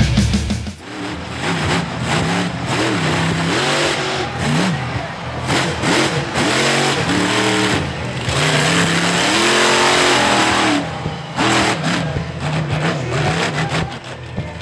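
Monster truck engine revving hard, its pitch rising and falling again and again as the throttle is worked, loudest between about eight and ten and a half seconds in.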